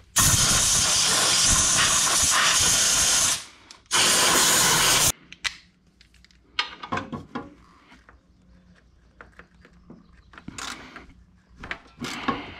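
Compressed-air blowgun blasting twice, a long hiss of about three seconds and then a shorter one of about a second, blowing dirt out of the belt tensioner mounting area. Afterwards come light clicks and taps of a wrench and socket being handled.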